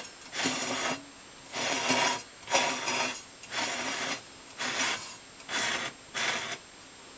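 A hardwood runner scraping as it slides back and forth in a table saw's steel miter slot: about seven short rubbing strokes, one every second or less. The fit is tight, so the wood drags in the slot.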